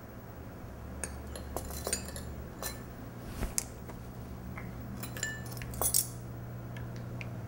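Metal measuring spoons tapping and clinking against small glass bowls and against each other, a string of light sharp clicks with a few brief ringing chinks, the loudest about six seconds in. A steady low hum lies under them.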